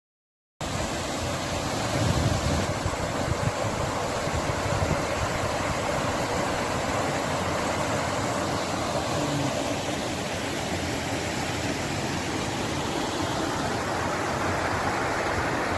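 Steady rush of a woodland stream running, cutting in suddenly about half a second in.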